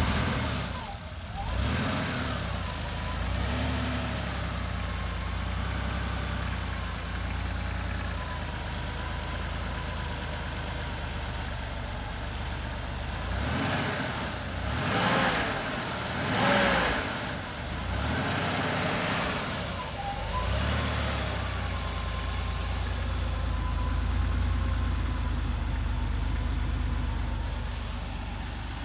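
Porsche 964 RS's air-cooled 3.6-litre flat-six idling just after start-up, with a series of short throttle blips that rise and fall in pitch. The blips come a few seconds in and again in a cluster around the middle.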